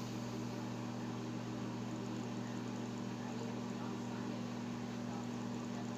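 Microwave oven running mid-cycle, a steady even hum.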